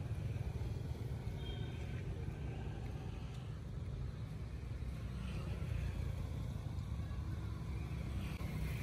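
Steady low outdoor rumble, with a few faint, short high-pitched calls at moments.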